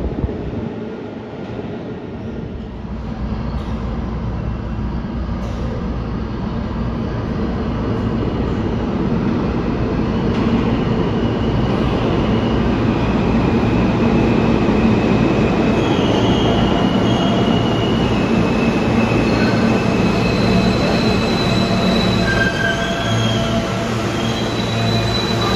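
Alstom R160A-1 subway train pulling into an underground station: the rumble of wheels on rail grows louder over the first dozen seconds. From about halfway on come short high-pitched squeal and whine tones as it brakes to a stop at the platform.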